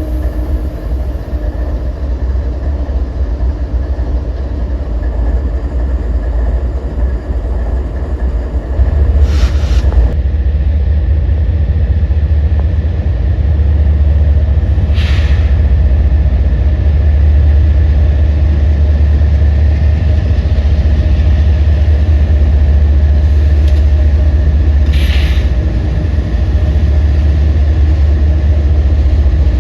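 CSX freight train passing, its diesel locomotives making a loud, steady deep rumble that gets louder about nine seconds in. Three brief hissing bursts break through along the way.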